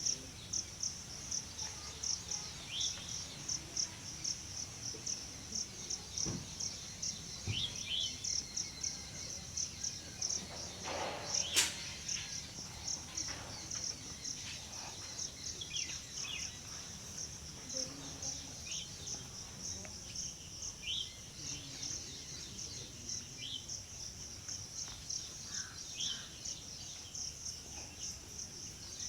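Insects chirping in a steady, even pulse, about three pulses a second, with short high chirps scattered over it and one sharp click about eleven seconds in.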